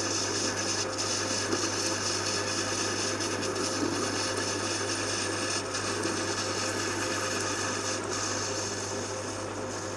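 Metal lathe running with a parting-off blade cutting through aluminium: a steady motor hum under a dense, even cutting hiss. The hiss drops away just at the end as the cut finishes.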